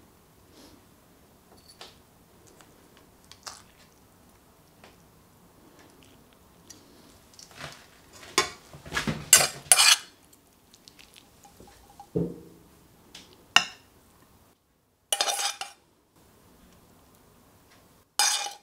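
Metal tongs and a serving spoon clinking and scraping against a ceramic plate and metal frying pans as food is plated. Faint scattered ticks at first, then a cluster of loud sharp clatters about halfway through, followed by a duller knock and a few more short bursts of clinking.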